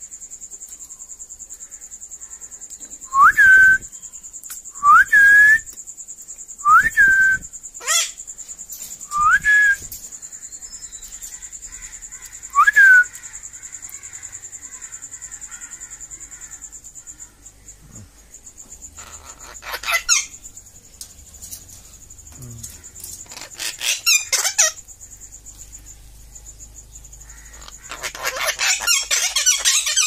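Five short whistles a second or two apart, each sliding up and then held briefly, over a steady high-pitched tone in the background. A few sharp clicks follow, and near the end comes a harsh, scratchy burst.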